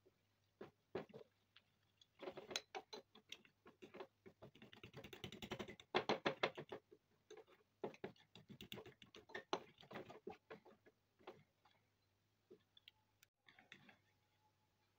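Metal fork whisking a spice batter in a ceramic bowl: quick runs of clicks and taps as the fork strikes and scrapes the bowl, in bursts that thin out near the end.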